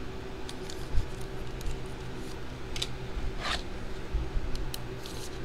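Clear plastic trading-card holders handled and set down on a table: a soft knock about a second in, a few light clicks, and a short sliding swish about three and a half seconds in, over a steady low hum.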